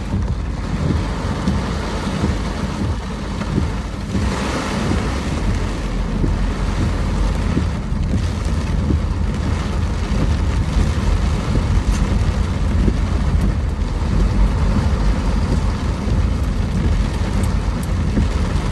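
Steady low rumble of a vehicle driving in heavy rain, with rain hiss and wind buffeting the microphone. About four seconds in, a brief louder hiss swells and fades.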